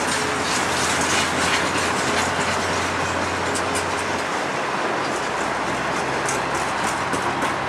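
Cement hopper wagons of a freight train rolling past: a steady rumble and rattle of steel wheels on the rails, with scattered sharp metallic clicks.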